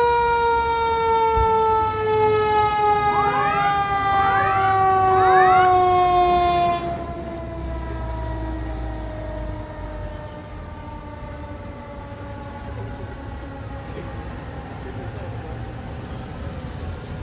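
Fire engine siren winding down in one long, slowly falling wail, with quick rising siren sweeps repeating over it during the first six seconds. About seven seconds in the sound drops sharply as the engine goes by, and the wail keeps sinking more quietly afterwards.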